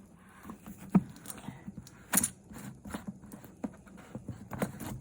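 Handling noises: a string of light, irregular knocks and clicks, with louder knocks about a second in and just after two seconds.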